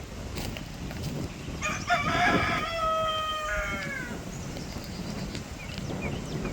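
A rooster crowing once: a drawn-out crow of about two seconds that drops in pitch at the end. Wind rumbles on the microphone throughout.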